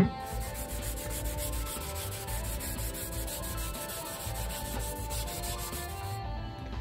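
A green Scotch-Brite scuff pad scrubbed back and forth by hand over wet, degreaser-soaked steel on a car's underside.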